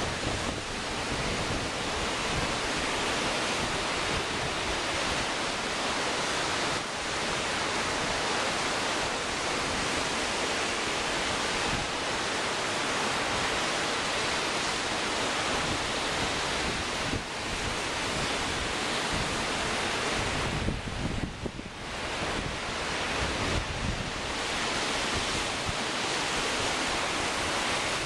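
Wind-driven lake waves breaking continuously in a storm, with gusty wind buffeting the microphone. The sound stays steady, easing briefly about three-quarters of the way through.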